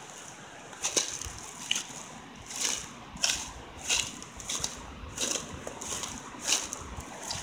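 Footsteps crunching through dry leaf litter, twigs and undergrowth at a steady walking pace.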